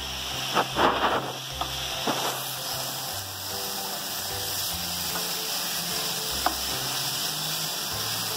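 Grated carrots sizzling as they fry in ghee in a kadhai, with a spatula stirring and scraping through them. A few sharp knocks of the spatula against the pan in the first two seconds and once more near the end.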